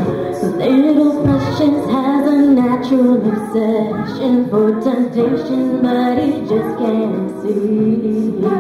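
Mixed a cappella group singing a pop song in close harmony, voices only: a lead woman's voice over backing voices holding long chords.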